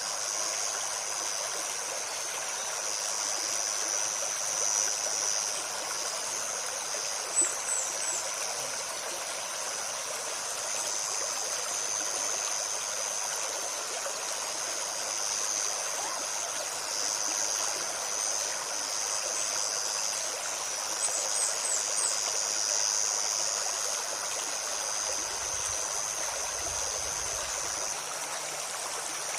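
A forest stream running and babbling over stones, with a steady high insect buzz. Brief high bird chirps come a third of the way in and again about two-thirds through.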